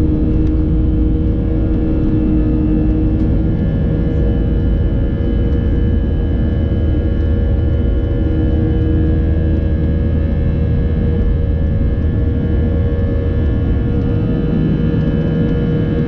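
Airbus A320's IAE V2500 turbofan engines at takeoff thrust, heard from inside the cabin beside the wing: a loud, steady rumble with a steady whine over it, as the jet lifts off and climbs.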